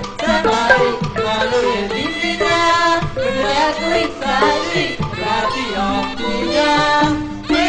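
Traditional folk music: a sliding, bending melody over steadier held notes.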